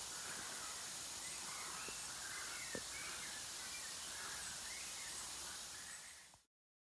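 Steady hiss and fizz of air bubbles rising from a DIY microporous-hose aeration diffuser and breaking the water surface. It fades out near the end.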